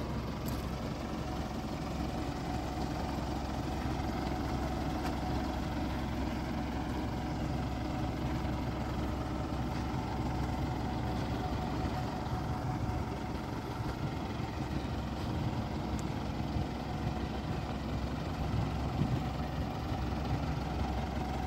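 Isuzu ELF freezer truck idling steadily: an even low engine hum with a faint steady whine above it.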